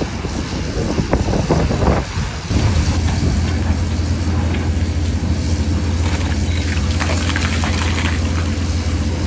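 Excavator engine and hydraulic rock-working attachment running, with irregular knocking and rattling at first. About two and a half seconds in, a steady heavy low drone takes over.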